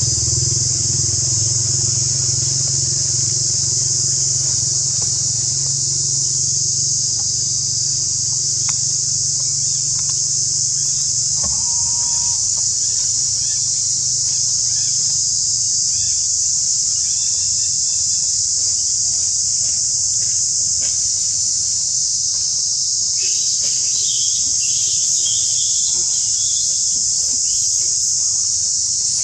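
Steady, shrill insect chorus droning without a break. Under it, a low engine rumble weakens after about twelve seconds, and a few faint chirps come in near the end.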